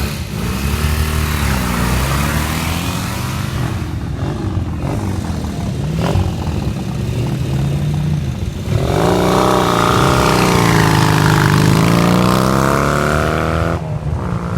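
Vintage and classic motorcycle engines at a hill-climb start line: throttle blips rising and falling in the first few seconds, then a lower steadier running. About two-thirds of the way through, one engine is revved hard and held high and loud, and it cuts off suddenly near the end.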